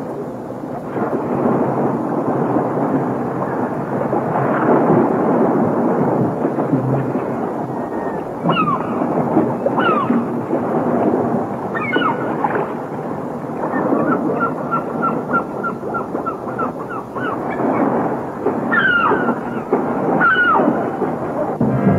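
Waves breaking and rushing on the shore, with seabirds calling over them: several falling cries and, midway, a quick run of short repeated notes.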